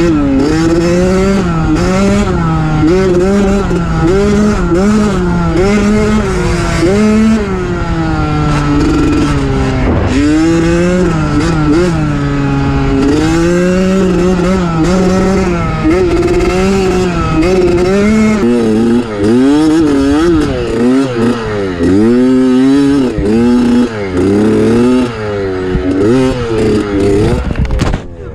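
Dirt bike engine running hard under a rider, its pitch climbing and dropping again and again as it revs and shifts, with quicker, choppier blips through the last ten seconds.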